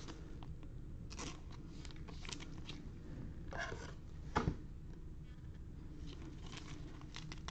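Faint handling noises of trading cards and plastic in gloved hands: soft rustles and small clicks as a card and a plastic sleeve are handled and a rigid plastic top loader is picked up, with one sharper tap about four and a half seconds in, over a low steady hum.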